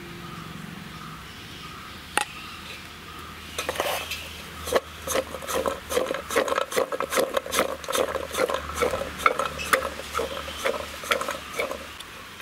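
Pieces of tender jackfruit tossed by hand in a metal bowl to coat them with turmeric, the chunks knocking against the bowl in quick, irregular clatters. One knock comes about two seconds in, and the rattling runs from about three and a half seconds in until near the end.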